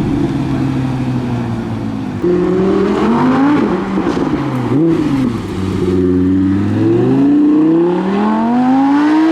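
Audi R8 sports car engine being revved, its pitch rising and falling several times. About two seconds in it gets louder, and near the end the pitch climbs steadily as the car accelerates away.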